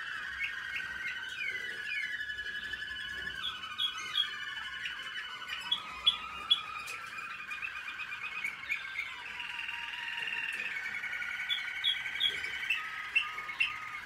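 Young American Singer canaries in song training, singing a continuous warbling song of rolling trills and glides, with a few louder, sharp notes about six seconds in and again near the end.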